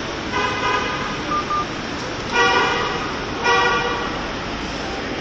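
Vehicle horns honking three times, each a steady tone of about half a second, with a short thin beep between the first two, over steady city traffic noise.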